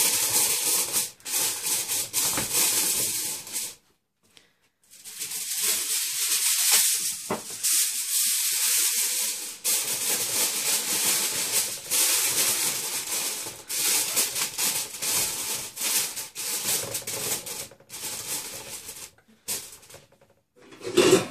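Aluminium foil crinkling and rustling as it is stretched over a large steel pot and crimped around the rim by hand, in irregular bursts with a couple of short pauses. The foil seals the pot so the steam stays in for dum cooking. A brief louder sound comes at the very end.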